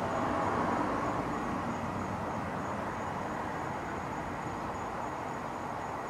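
Steady rumble of vehicle traffic going by, swelling slightly in the first second or two, with no horn sounding. A faint high insect trill pulses steadily underneath.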